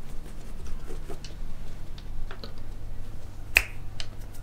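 Fingers snapping to call a cat: a few faint clicks, then one sharp snap about three and a half seconds in and a weaker one just after.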